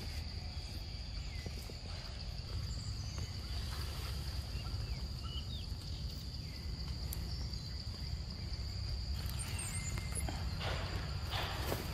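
Outdoor ambience: a steady high insect drone with a few faint bird chirps over a low wind rumble, and rustling in leaves and undergrowth near the end.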